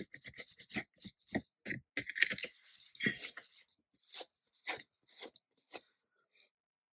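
A stamp being wiped clean: a run of quick, crinkly rubbing strokes, about three a second, which thin out and stop near the end.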